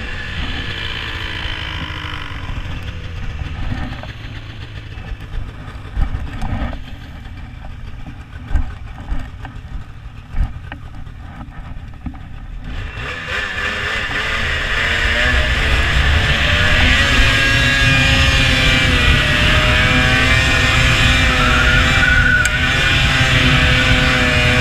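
Ski-Doo 600 RS snowmobile's two-stroke twin engine running at low throttle over rough ground with a few sharp thumps, then opened up about halfway in and held at high revs as the sled runs out onto the water to skip it.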